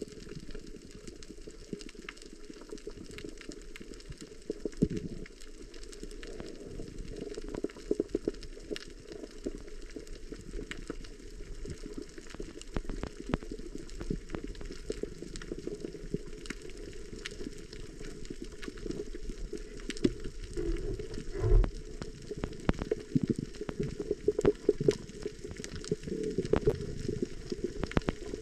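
Underwater sound picked up by a camera beneath the sea over a coral reef: a low, muffled rush of water with many scattered crackling clicks throughout.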